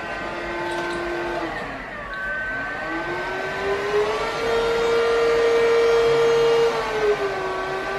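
Cordless stick vacuum cleaner running with its brush nozzle drawn through a bulldog's coat, a steady motor whine. The pitch sags about two seconds in, then climbs and holds higher, dipping slightly near the end.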